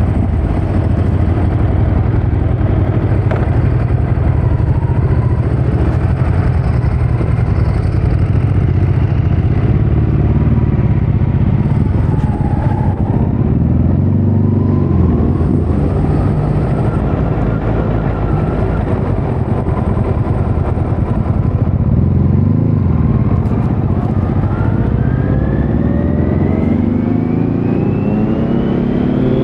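2018 Kawasaki Z900's inline-four engine running through a Leo Vince muffler on stock headers with no dB killer, the bike under way at fairly steady revs. In the last few seconds the engine note climbs in one long rising pitch as it accelerates.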